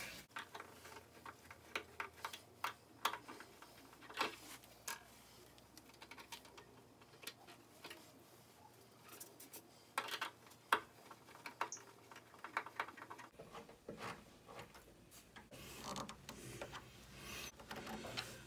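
Faint, scattered clicks and scrapes of a screwdriver working the terminal screws of an electric water heater's heating element as the wires are fastened. The sharpest click comes about ten seconds in.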